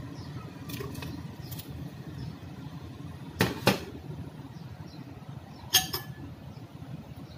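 Sharp clinks against a stainless steel cooking pot as chicken pieces are tipped in from a bowl: a couple of faint ones early, two loud ones a little under halfway, and one more about two seconds later, over a steady low hum.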